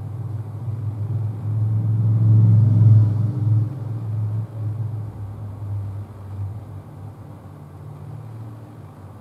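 A low rumble that swells for about three seconds and then slowly fades away.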